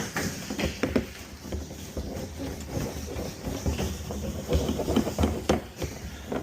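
Water from a water-station fill hose pouring into an empty plastic IBC tote, with a steady rushing and irregular knocks and clatter.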